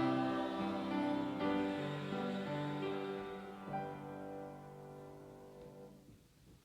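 Slow piano music in sustained chords, ending on a final chord that fades out about six seconds in.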